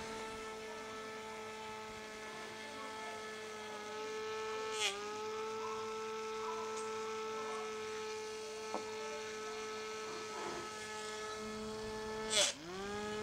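Homemade micro brushless motor, run by a computer-fan driver board on a 3.7 V lithium battery, spinning at high speed with a steady whine. Its pitch sags briefly with a click about five seconds in, and near the end a loud click comes with a sharp drop in pitch before it climbs back up.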